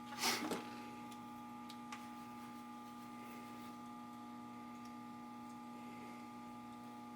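Steady electrical hum made of several fixed tones. A brief scuffing noise comes a fraction of a second in, and a faint tick about two seconds in.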